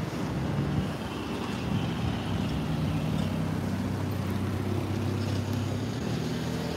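Car engine running with a steady low hum, as a car comes past close by near the end.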